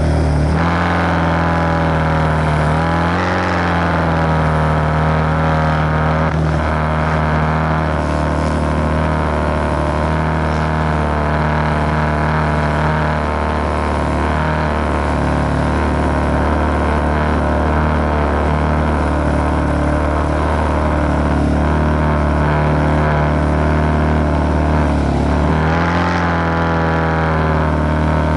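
Small dirt bike engine running at a steady pace while being ridden, its pitch dipping and climbing again a few times as the throttle is eased and opened, once a few seconds in and again near the end.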